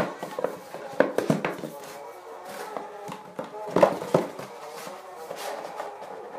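Background music with several sharp knocks and clicks as a disc case and its box are handled and set down on a wooden floor, loudest about a second in and again around four seconds in.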